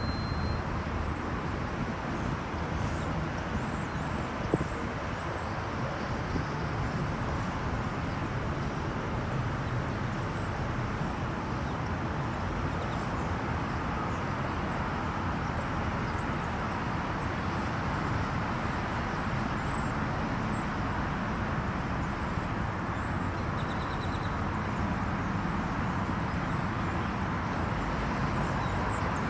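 Steady outdoor street ambience: a continuous rumble of vehicle and traffic noise, with a few faint high chirps above it.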